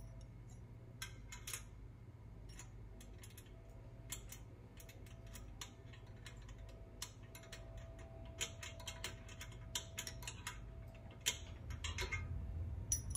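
Light, irregular metallic clicks and ticks, a few a second and coming faster near the end, as a combination wrench turns and tightens the nuts on a steel pedal bracket.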